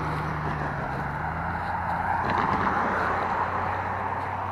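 A pickup truck driving past, its tyre noise and low engine hum swelling to a peak about halfway through and then fading.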